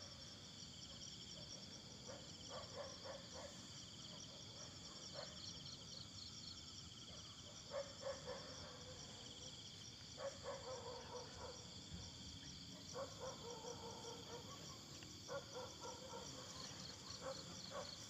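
Faint night chorus of insects such as crickets, a steady high-pitched pulsing trill, with short bursts of clicking every few seconds.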